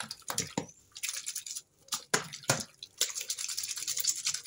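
Hands rubbing and wringing a wet sock in a plastic tub of soapy water: irregular wet sloshing and splashing.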